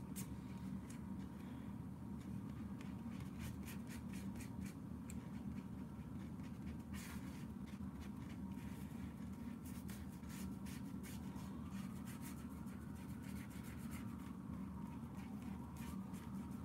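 Paintbrush scrubbing and dabbing watercolor paint on paper in a run of small, irregular scratchy strokes, over a steady low hum.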